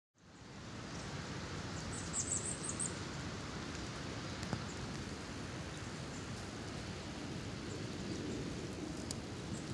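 Steady, even outdoor rushing noise of open forest air, fading in at the start, with a quick run of high bird chirps about two seconds in.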